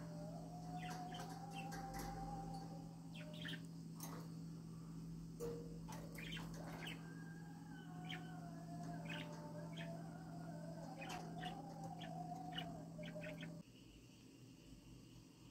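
Pet budgerigars chirping and warbling in short, quick calls, over a steady low hum that stops suddenly near the end.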